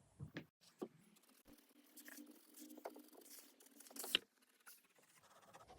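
Mechanical pencil lead scratching faintly on paper in short, uneven strokes, with a few sharper scratches and ticks, the loudest about four seconds in.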